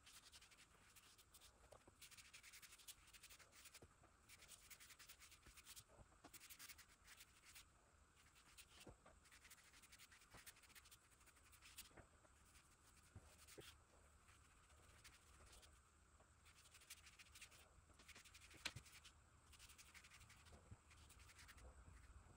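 Near silence with faint, irregular scratchy strokes of a felt-tip dye pen being worked over a shellacked wooden door surface for colour correction.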